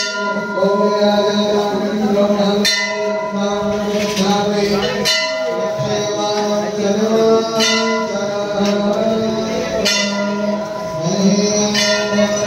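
Temple bell struck about every two to three seconds, each stroke ringing on, over devotional music with sustained tones.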